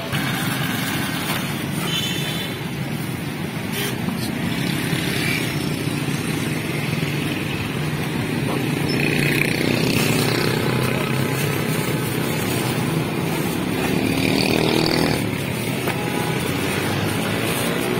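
Street traffic with motorcycle engines running, a steady engine hum that swells twice as vehicles pass close by.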